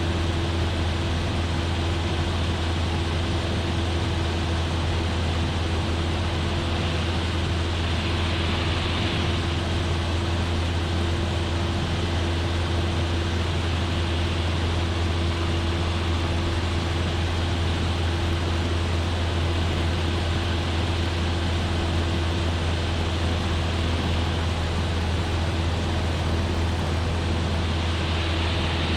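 Cessna 172F's Continental O-300 six-cylinder engine and propeller droning steadily at constant power in cruise.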